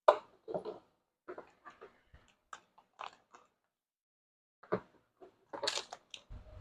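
Tire sealant being squeezed from its bag into an e-bike inner tube: a string of short, irregular spurts and clicks, loudest at the start and again near the end.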